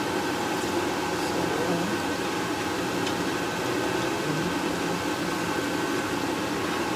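Minced garlic sizzling in hot oil in a nonstick frying pan, stirred with a wooden spatula, giving a few light scrapes. Under it runs a steady background whir with a faint thin whistle.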